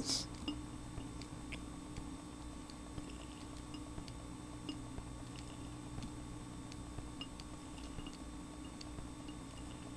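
Quiet room tone with a steady low electrical hum and a scattered handful of faint light clicks.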